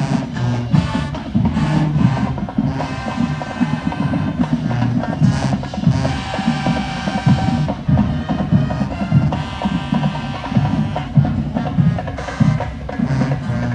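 Music with a prominent drum beat and no vocals.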